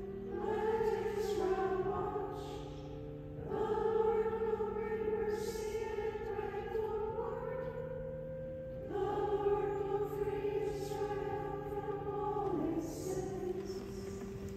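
A choir singing a slow hymn in long, held phrases, with steady low held notes underneath.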